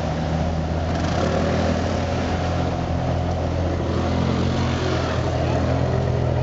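Ferrari 599 GTO's 6.0-litre V12 idling steadily through its quad exhaust, heard close to the tailpipes.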